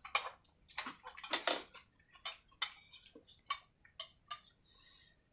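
Eating sounds: a metal spoon clicking and scraping in a bowl, with wet slurping and chewing of clear vegetable soup, in a string of short irregular clicks and smacks.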